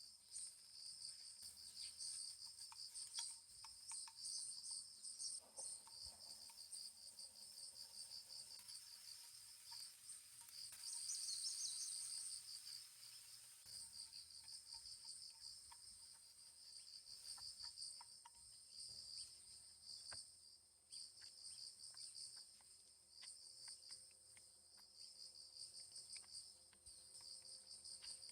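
Crickets chirping in a steady, pulsing high-pitched chorus, briefly louder about eleven seconds in, with faint scattered clicks beneath.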